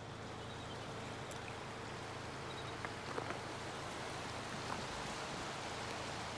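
A wide, shallow river rushing steadily, an even hiss of moving water with a few faint ticks in the middle.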